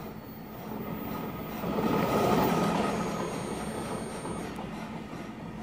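Electric drive motor of a 1997 Club Car DS golf cart (48-volt, 3.2 hp) running in forward, a whirr that swells to its loudest about two seconds in and then fades, with a faint steady whine over it. The motor is answering a newly fitted replacement controller.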